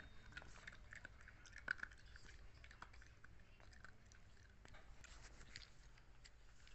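Faint puppy chewing a dog treat: small, scattered crunches and clicks in near silence, one slightly louder about two seconds in.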